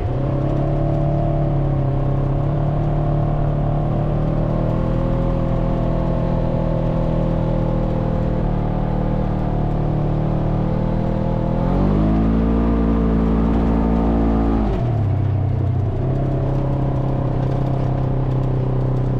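Side-by-side UTV engine running steadily while under way. About twelve seconds in it rises in pitch as the machine accelerates, then drops back about three seconds later.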